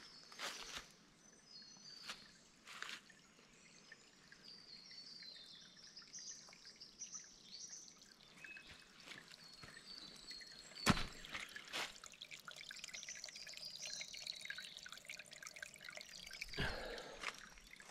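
Faint trickle of water dripping and plinking into a pool in the bush. A few sharp clicks stand out, the loudest about two-thirds of the way through.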